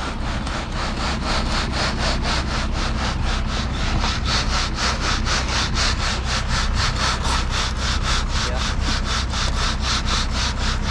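Ready-mix concrete truck running during the pour, a steady low hum under a rasping scrape that repeats evenly about four times a second.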